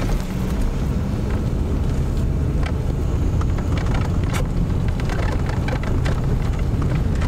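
Cabin noise inside a moving Audi car: a steady low rumble of engine and road, with frequent small knocks and rattles.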